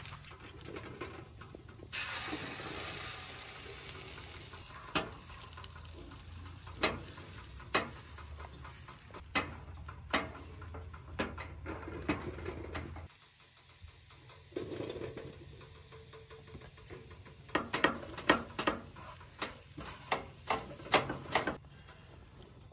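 Soy chorizo and eggs sizzling in a nonstick frying pan on a propane camp stove, with a black nylon spatula scraping and tapping against the pan about once a second as the food is stirred. About two-thirds through the sizzle drops away, and near the end comes a quick run of scrapes and taps as the spatula pushes diced potatoes off a paper plate into the pan.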